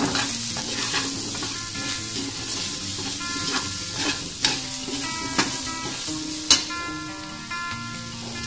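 Diced potatoes and carrots sizzling in a metal wok while a metal spatula stirs them, scraping and clacking against the pan. The loudest clacks come about four and a half, five and a half and six and a half seconds in. After that the stirring stops, leaving the sizzle.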